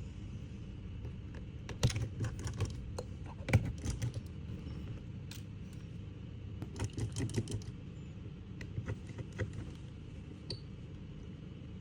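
Scattered small clicks and taps of hand tools working on an opened smartphone's internal screws and parts, in short irregular clusters over a steady low hum.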